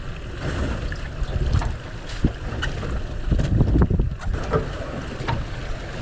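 Wind buffeting the microphone on an open boat at sea, coming in uneven low gusts, with water lapping at the aluminium hull and a few light clicks and knocks.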